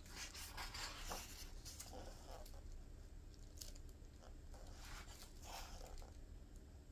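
A page of a hardbound book being turned by a gloved hand: a paper rustle over the first two seconds or so, then a few faint brushes of the hand on the paper.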